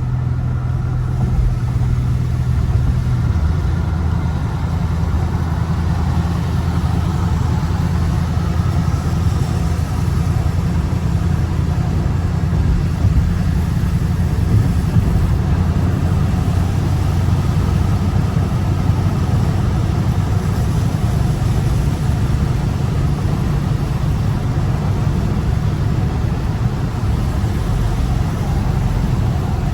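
Dodge Scat Pack's 6.4-litre HEMI V8 running at low speed in traffic, a steady low drone whose pitch drops a little about three seconds in.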